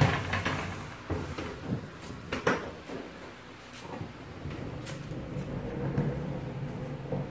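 Plastic clunks and knocks from handling the lid of a top-loading washing machine: a series of sharp knocks spread out over several seconds.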